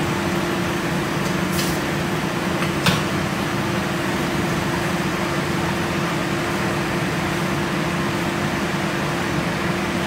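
Kitchen range hood extractor fan running with a steady low hum, and a single light tap about three seconds in.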